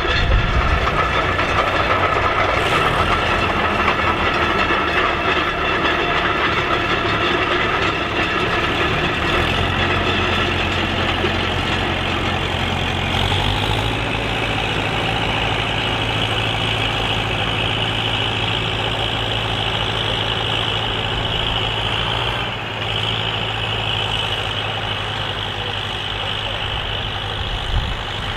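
Massey Ferguson 65 tandem tractor's engines running steadily under load while pulling a five-furrow plough; the engine note shifts about halfway through.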